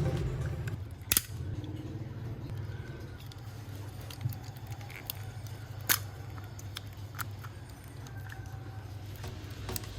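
A few sharp clicks over a low steady hum, the loudest about a second in and about six seconds in, with fainter ones between.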